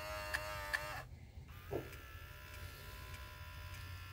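Jeep Grand Cherokee ZJ power memory mirror's repaired adjustment motor running on a bench power supply. It gives a whine with a light tick about every 0.4 s, stops about a second in, then runs again with a quieter, steadier whine. The motor is tilting the mirror glass properly.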